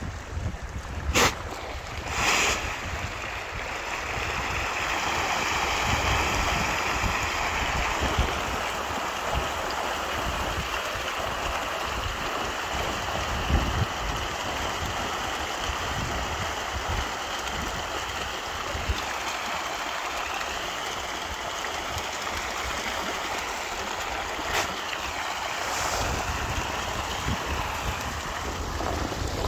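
A large shoal of fish thrashing and splashing at the surface of a pond in a feeding frenzy, a continuous churning splash that swells a few seconds in and then holds steady. Two sharp knocks come near the start.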